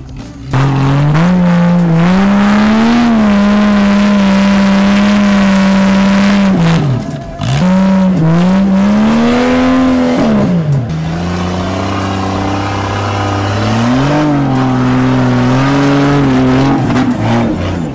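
Off-road 4x4 trial vehicle's engine revving hard and held at high revs under load as it claws up a steep dirt slope. The revs drop briefly about seven seconds in and again near eleven seconds, then climb back up.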